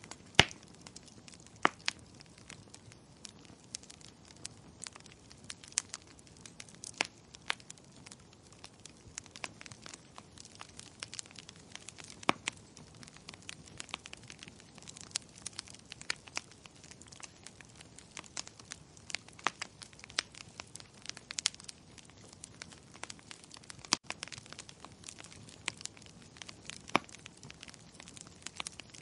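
Wood fire crackling: many sharp, irregular pops and snaps over a low steady hiss.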